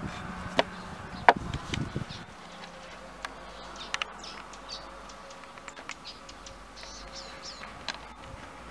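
A wooden rolling pin knocking and clattering on a wooden board a few times, loudest about a second in. Small birds chirping in the background, more often from about three seconds in.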